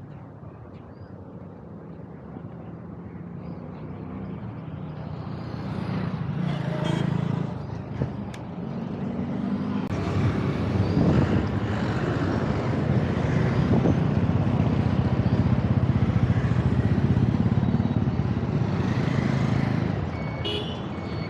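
Street traffic: motor vehicles running and passing. The noise builds up over the first half and eases near the end, with a sharp click about eight seconds in.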